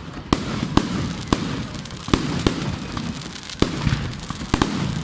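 Fireworks display: a run of sharp bangs, about two a second at uneven spacing, over a continuous low rumble.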